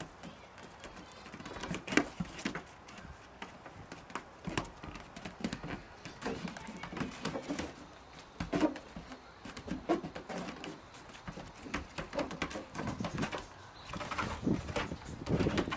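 Goat kids' small hooves tapping, clattering and scraping on the shingled wooden roof of a playhouse as they hop about, in short, irregular knocks.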